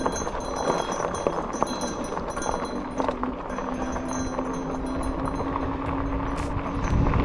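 E-bike riding over a rough off-road trail: steady rolling noise with many small ticks and rattles, and a steady motor hum. Wind buffeting on the microphone grows near the end.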